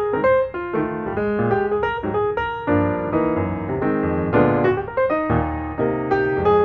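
Background music played on piano: a light melody of quick, separate notes over chords.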